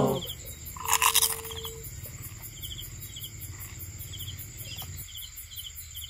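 Crickets chirping steadily: short high chirps repeating about twice a second over a fine, fast high ticking. About a second in there is one brief louder sound.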